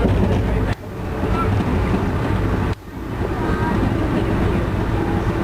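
Steady rumble of a moving Amtrak Northeast Regional passenger train heard from inside the car, with wheels and track running underneath. The noise drops away abruptly twice, about a second in and again near three seconds in, and each time builds back up.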